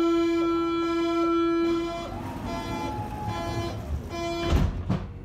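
Door-closing warning signal of a Berlin IK18 U-Bahn train: a loud steady tone for about two seconds, then shorter, fainter beeps. Near the end the sliding doors shut with two sharp knocks.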